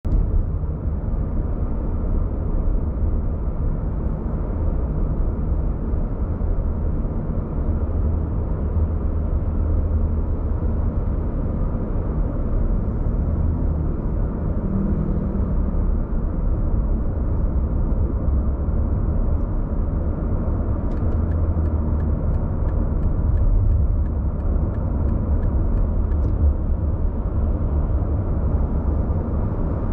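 Steady engine and tyre rumble of a car driving along a road, heard from inside the cabin. For about five seconds after the middle there is a faint, evenly spaced ticking.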